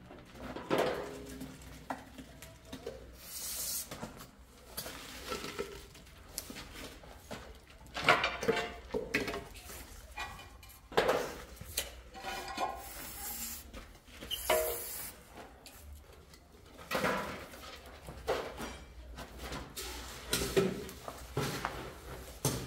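Irregular scraping, knocking and clatter of hand tiling work as wall tiles and tools are handled and set against the wall.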